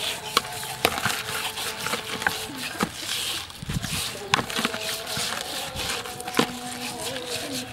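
Hands rubbing and scrubbing coarse salt over a whole wet fish's skin in a plastic basin, a wet rubbing sound broken by frequent sharp clicks and knocks as the fish and hands strike the basin.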